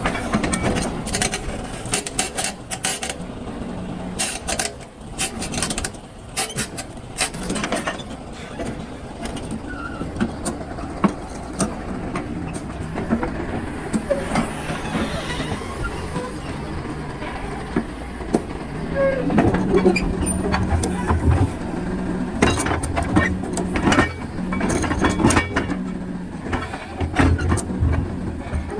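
DLC 225 excavator's diesel engine running steadily under load, with many sharp knocks and clatter of the bucket working heavy blasted rock. The engine grows louder and heavier from about two-thirds of the way in.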